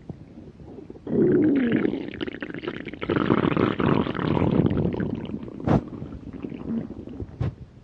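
A hungry person's stomach growling: a long gurgling rumble that starts loudly about a second in, with squeaky rising and falling pitch glides, and eases off over the last few seconds. Two sharp clicks near the end.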